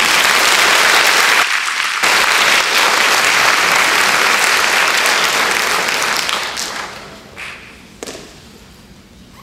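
Audience applauding, dying away about seven seconds in, with a single knock a second later.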